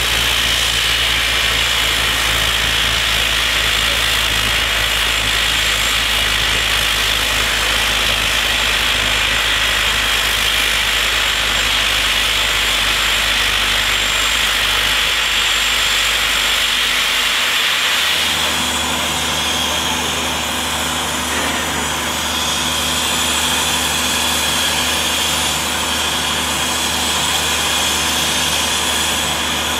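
NSWGR 32 class steam locomotive standing with steam hissing steadily from its safety valves. About 18 seconds in the sound changes: the deep rumble drops away and the hiss eases to a softer steady hiss with a low hum.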